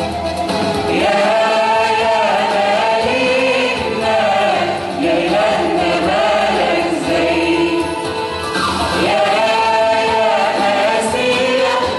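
Church choir singing an Arabic Christian hymn, many voices together in sustained phrases.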